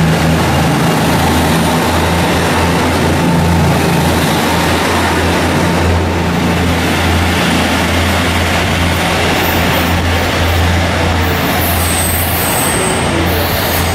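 KiHa 85 series diesel railcars pulling out of the station, their Cummins diesel engines running with a steady low drone as the cars pass close by and the train draws away.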